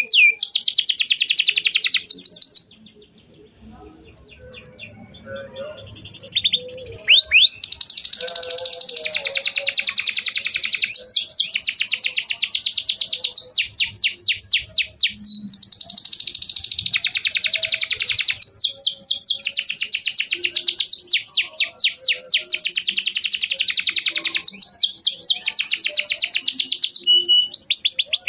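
Domestic canary singing long, very rapid trills of high chirping notes, with a short break a few seconds in before the song runs on unbroken.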